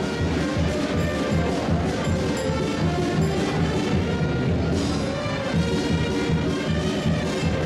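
Charanga street band, brass and drums, playing a lively tune with a steady beat.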